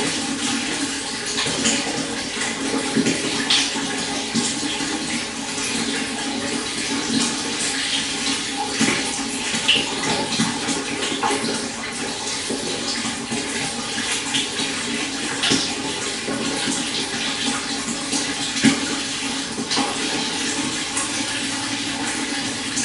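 Shallow stream flowing steadily, a continuous rushing burble with frequent small splashes and gurgles.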